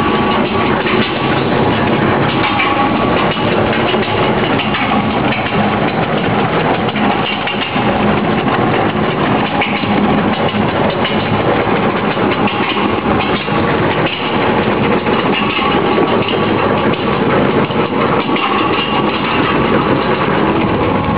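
Single-shaft shredder running with its alloy-steel rotor cutting plastic film: a steady, loud grinding rattle with a faint hum underneath.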